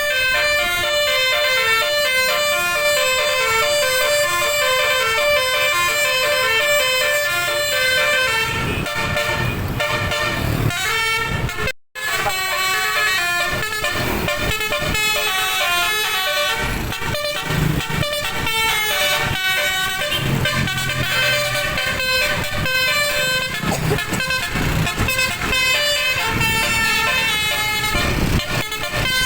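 Bus telolet horn, a Basuri-type multi-trumpet air horn, playing a fast tune of stepped notes. The tune breaks off briefly about twelve seconds in, then goes on with rougher noise mixed under it.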